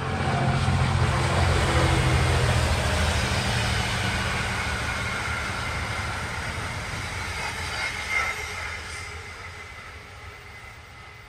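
Three coupled GBRf Class 66 diesel locomotives running light past at speed: a low diesel engine drone with wheel and rail noise, loudest in the first few seconds, then fading steadily as they pull away, with a brief high sound about eight seconds in.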